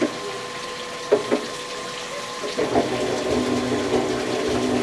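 CNC cylinder hone running in a bore of a cast-iron V8 block, with honing fluid streaming and splashing over the stones; it is honing a scuffed cylinder oversize to clean it up. A few sharp clicks come in the first second and a half, and from about two and a half seconds in the honing grows louder with a steady drone.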